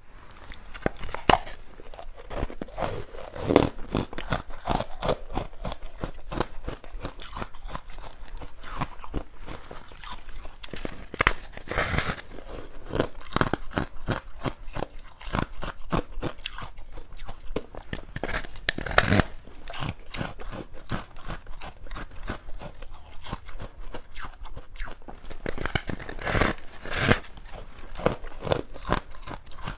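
Close-miked biting and chewing of a hard frozen ice crescent studded with chocolate sandwich cookies: steady crackling crunches, with a louder bite every seven or eight seconds.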